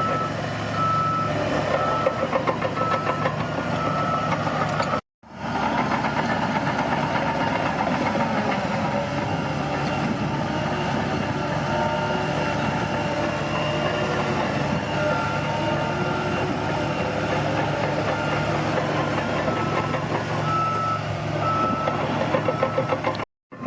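Bulldozer's diesel engine running steadily under load, with a reversing alarm beeping in several runs of short, evenly spaced beeps. The sound cuts out twice for a moment, at about five seconds in and near the end.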